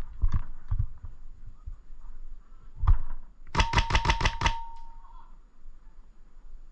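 Airsoft gun firing a quick burst of about seven shots in about a second, with a steady whine under the shots. A single sharp shot or click comes just before the burst.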